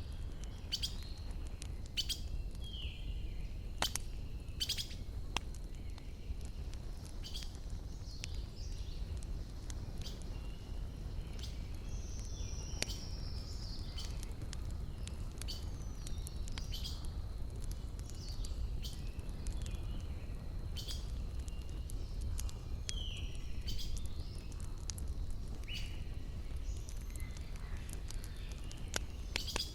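Wood campfire crackling, with scattered sharp pops over a low steady rumble. Small birds chirp throughout in short, mostly falling calls.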